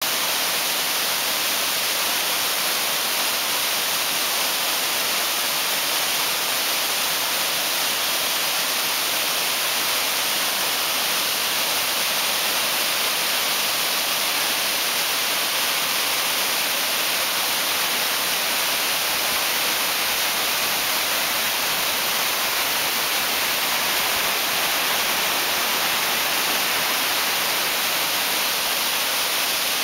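Waterfall: white water cascading steeply down tiered rock ledges, a steady rushing hiss with no pauses.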